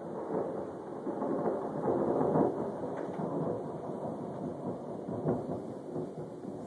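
Rolling thunder rumbling on without a break, loudest about two seconds in.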